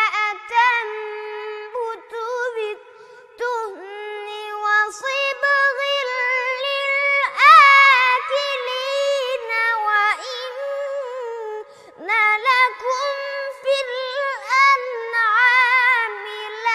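A boy's high voice chanting Quran recitation in the melodic mujawwad style, unaccompanied: long drawn-out notes with trills and ornaments, broken by short pauses for breath, the loudest swell about seven seconds in.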